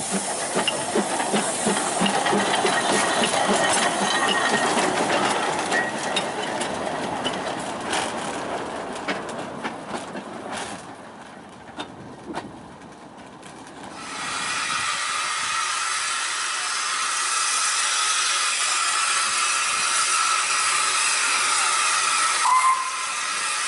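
Narrow-gauge steam locomotive Prince running past close by, with rhythmic exhaust beats and wheel and rod clatter that fade as it moves away. After a cut, a steady loud hiss of steam comes from the locomotive Welsh Pony standing at the station, with a brief rising squeal near the end.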